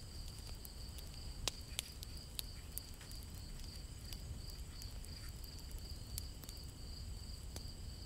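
Quiet painting sounds: a paintbrush dabbing acrylic gouache onto paper, heard as a few faint soft ticks, mostly in the first few seconds. Under it runs a faint, steady, high-pitched pulsing trill.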